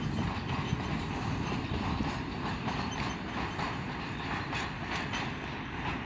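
Freight train of cement tank wagons rolling past: a steady rumble of wheels on rail with a rhythmic clacking of wheels over rail joints.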